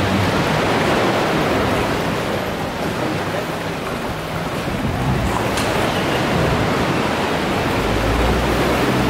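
Steady rushing noise of sea surf and wind.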